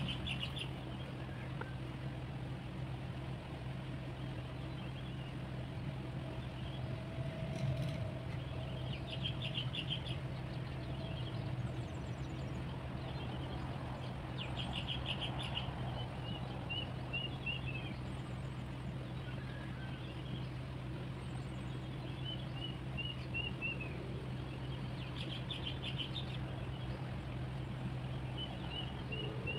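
Small birds calling every few seconds: short trilled calls and runs of quick chirps falling in pitch, over a steady low hum.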